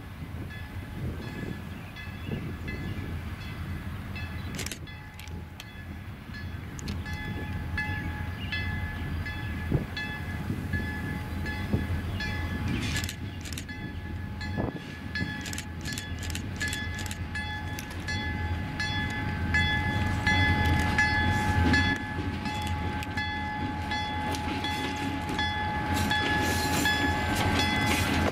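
Slow diesel freight train led by EMD F9-series cab-unit locomotives approaching and rolling past, engines running with a steady high whine. Sharp clanks and clicks from the wheels on rough jointed track come thick from about halfway, growing louder as the locomotives go by.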